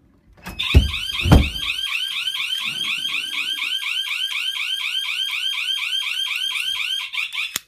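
Home security alarm siren going off after the door is opened: a fast warbling wail of rapid pitch sweeps, about six a second, that cuts off suddenly near the end. Two heavy thuds of the door come as it starts.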